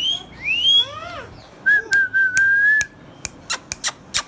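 Indian ringneck parrot whistling: two short arching whistles, then a longer steady whistle, followed by a quick series of sharp clicks.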